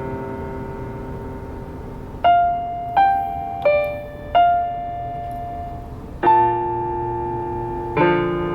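Piano played slowly. A held chord fades out, then four single notes follow about two-thirds of a second apart, then a chord is struck twice more, each note left to ring and die away.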